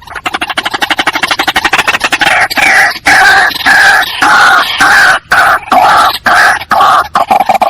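White-breasted waterhen calling: a fast run of short notes that gives way, a couple of seconds in, to loud repeated call notes at about two a second.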